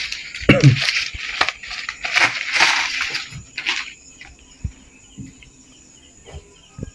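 Paper banknotes rustling and crinkling as a pile of bills is handled and spread out on a tile floor, for about four seconds. After that it goes quiet but for faint insect chirping and a few soft taps.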